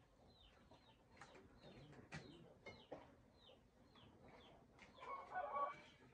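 Faint farmyard bird calls: a chicken clucking, loudest for about a second near the end, over a steady scatter of short, high, falling chirps from small birds.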